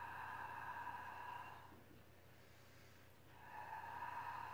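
A woman breathing out audibly through the mouth in two long, steady exhales of about two and a half seconds each, the second starting a little past halfway: the controlled exhale of Pilates breathing while she holds a bridge.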